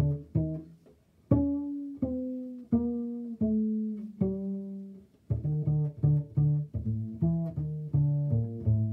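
Small 5/8 Czech double bass played pizzicato, an improvised line in E Dorian: quick plucked notes, a brief pause about a second in, then a few slower notes left to ring, then quicker notes again.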